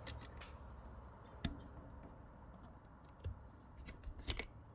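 A few light clicks and knocks from handling the tool cabinet's parts and screws during assembly: one about a second and a half in, then several more near the end, over faint room noise.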